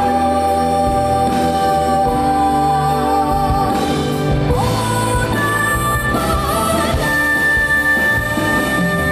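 A woman singing with a live band accompanying her, holding long notes; a higher held note comes in about halfway through.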